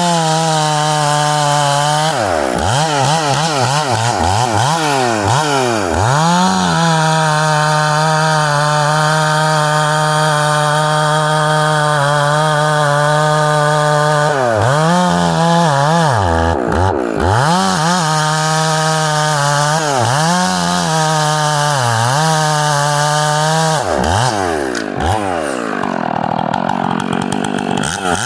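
Two-stroke chainsaw cutting through a tree, held at full throttle in long stretches. Its pitch drops and climbs back several times, then falls lower and rougher near the end.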